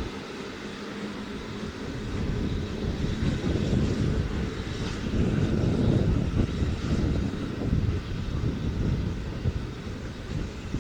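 Steam-hauled train running on the line, a heavy rumble that builds about two seconds in and holds.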